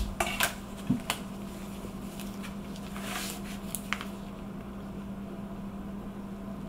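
Small clicks and taps of chocolate bonbons and a kitchen knife being handled on a countertop mat, several in the first second and a few fainter ones a few seconds in, over a steady low hum.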